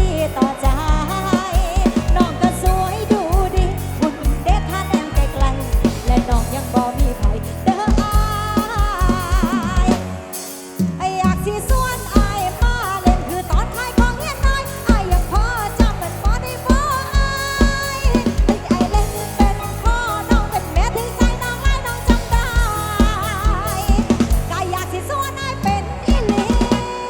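Live Isan dance music played loud through a rot hae sound truck's speakers: a drum kit with heavy bass drum and snare keeps a fast beat under a gliding melody line. The bass and drums drop out for about a second, around ten seconds in, then come back.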